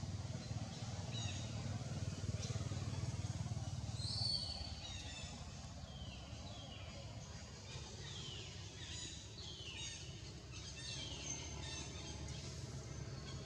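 A bird calling in the canopy: a series of short, falling high notes, about one a second, starting about four seconds in. Under it runs a steady low rumble.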